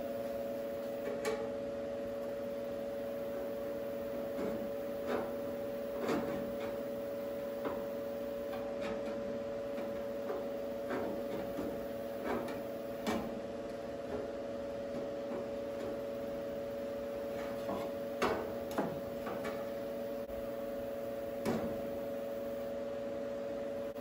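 Steady hum with scattered light clicks and knocks at irregular intervals, from a sheet-metal patch panel being handled and tried in place.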